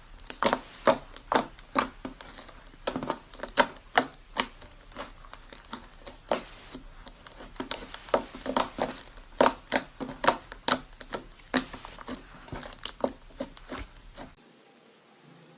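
Slime being squeezed, pressed and stretched by hand, giving a quick run of sticky clicks and pops about two or three a second. The clicking stops about a second before the end.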